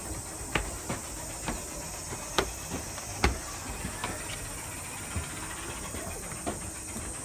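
Footsteps on a wooden deck: shoes knocking on the boards at an uneven walking pace over a steady high hiss.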